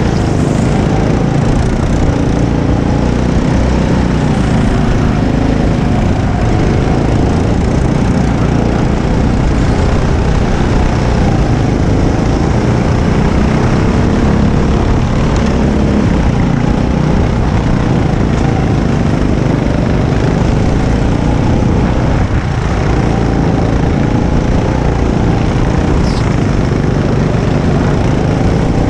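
Go-kart engine running hard, heard from on board, its pitch rising and falling as the revs change, over a heavy low rumble.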